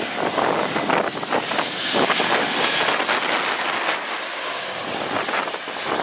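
Jet engines of a Boeing 737-800 on low final approach, a loud steady roar with a faint high whine, with wind buffeting the microphone.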